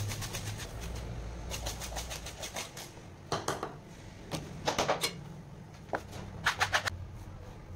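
A knife striking and scraping against a cutting board while a black pomfret is cut, in short quick runs of strokes separated by brief pauses, over a low steady hum.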